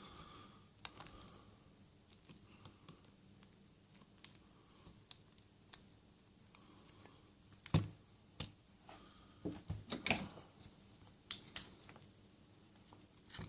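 Pliers clicking and tapping against the small metal plate and tabs of a Lockwood 355 deadlock mechanism as it is prised apart: scattered light clicks, with a few sharper knocks in the second half.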